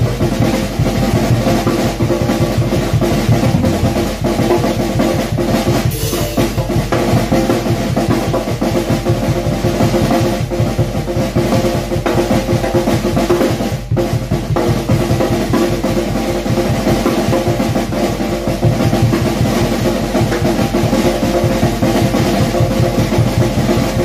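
Tama drum kit played with sticks in a sound check: fast, dense strokes on a black metal-shell snare drum with bass drum underneath, the drums ringing throughout. The playing breaks off for a moment about fourteen seconds in.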